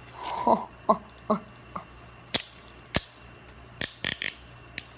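Steel hinged handcuffs being handled: a few short, squeaky pitched sounds in the first two seconds, then about six sharp metallic clicks spaced apart.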